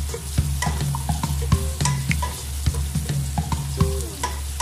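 Sliced onions and garlic sizzling in oil in a metal pot, stirred with a wooden spatula, with scattered clicks from the stirring. Background music with steady low notes plays over it.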